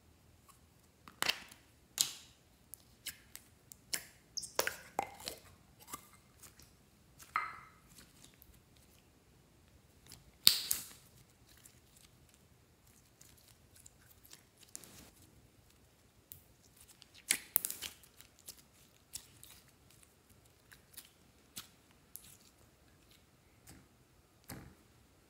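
Clear red slime handled by hand: pulled from its plastic cup, stretched and pressed into a glass bowl, making scattered sticky pops and clicks. The loudest pops come about ten seconds in and again past seventeen seconds.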